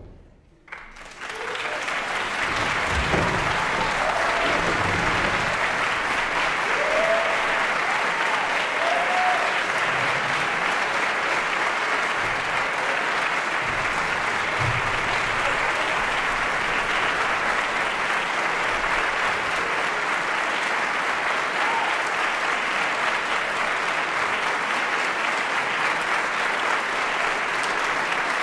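Concert audience applauding: the clapping starts about a second in and then runs steadily, with a few shouts of cheering near the start.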